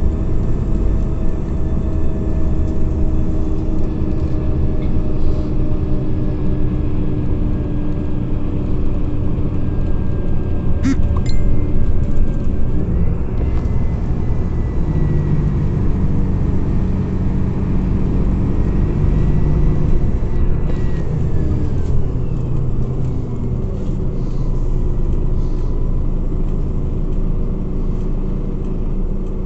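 Scania OmniCity CNG city bus driving, heard from inside: a steady low rumble of engine and road with a whine that climbs about 13 seconds in and falls away about 21 seconds in. There is one sharp click about 11 seconds in.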